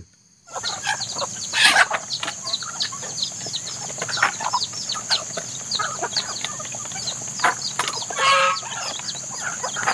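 Chickens clucking and peeping, with many short calls throughout and two louder bursts about two seconds in and again around eight seconds, over a steady high-pitched hiss.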